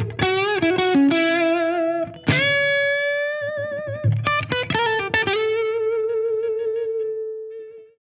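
Overdriven Gibson Les Paul Standard electric guitar on its neck pickup, playing a single-note lead with string bends and vibrato. It ends on one long held note that fades away near the end.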